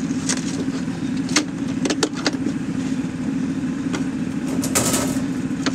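A 6-inch gold dredge's small engine running steadily, with several sharp clicks and a scrape of metal as the sluice box riffles are handled.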